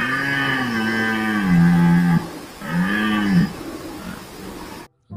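Red deer stag roaring: the deep rutting bellow. One long roar whose pitch sags and drops, then a shorter roar that rises and falls.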